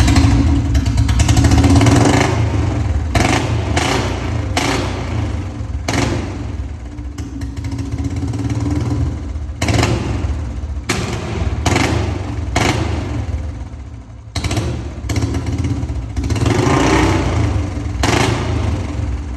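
Royal Enfield Bullet single-cylinder motorcycle engine running through a Mahindra tractor silencer and being revved, with the exhaust letting off many sharp firecracker-like pops as the revs drop.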